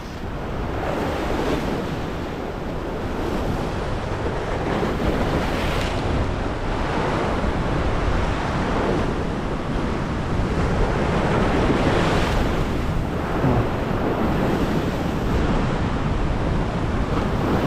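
Ocean swell surging and washing over the edge of a rock ledge, the wash swelling louder a couple of times, with wind buffeting the microphone.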